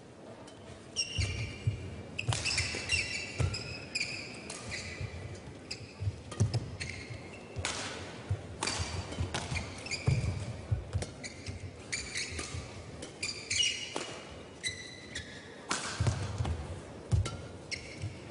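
Badminton rally on an indoor court: sharp racket strikes on the shuttlecock, high squeaks of court shoes on the mat, and thuds of footfalls and landings.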